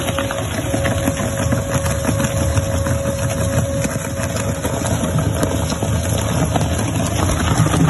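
Compact single-shaft plastic shredder running, its rotor tearing through polypropylene woven bags: a steady low drone with many small crackles of plastic being cut.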